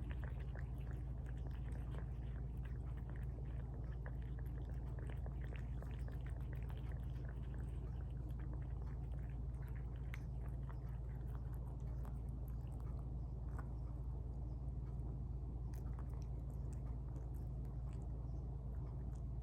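Cats chewing and smacking on tuna from their bowls: many small wet clicks, busier in the first half, over a steady low hum.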